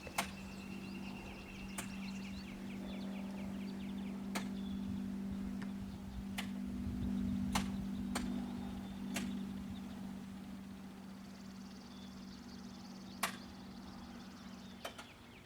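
Steady low hum, which the scene suggests is the John Deere Gator 825i running, fading out near the end. About ten sharp clicks at uneven intervals.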